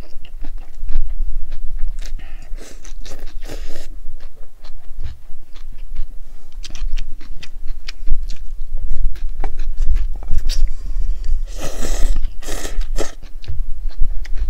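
Close-miked slurping and chewing of cold noodles in broth, with many small wet mouth clicks; two longer slurps come about two to four seconds in and again near the end.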